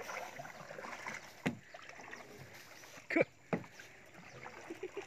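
A paddle dipping and pulling through the water beside a small HDPE plastic rowboat, with light splashing. Three sharp knocks stand out, one about a second and a half in and two close together just after three seconds.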